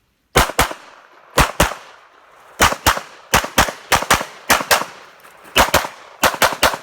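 Pistol fired in a rapid string, shots coming in quick pairs, about a dozen pairs in all with roughly half a second between them, starting about half a second in.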